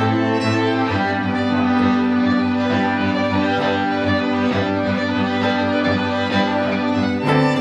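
String quartet of two violins, viola and cello playing held chords, with an acoustic guitar. The chord changes about a second in and again near the end.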